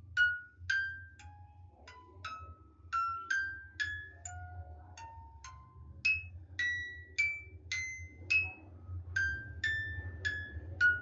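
Background music: a melody of struck, bell-like mallet notes, about two a second, over a steady low hum.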